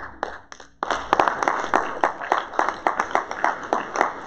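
Audience applauding: a few scattered claps, then the whole room breaks into steady clapping about a second in.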